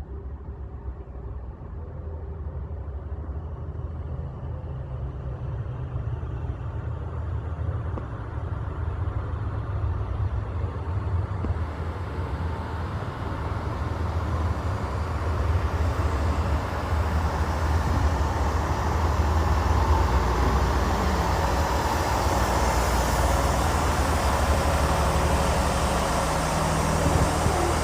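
Diesel train approaching, its low rumble growing steadily louder, with a rising rush of higher noise from about twelve seconds in.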